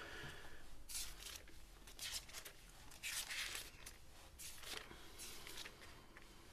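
Faint rustling of Bible pages being turned by hand: a series of soft papery swishes spread through the pause.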